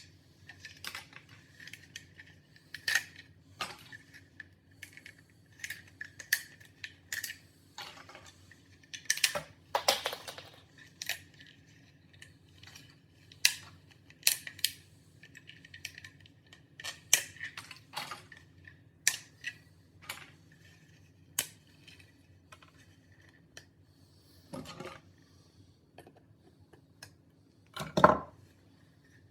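Irregular sharp clicks and clatters of small hard objects being handled, some in quick runs, with a heavier thump near the end, over a low steady hum.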